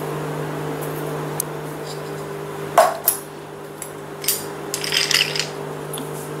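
Clinks and taps of kitchenware: a single sharp knock about three seconds in, then a run of small rapid clinks, over a steady low hum.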